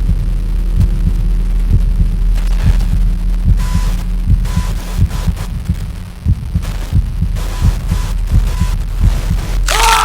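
Heartbeat sound effect: low thumps in a quick, steady rhythm over a steady low drone. Just before the end a sudden loud, high cry breaks in.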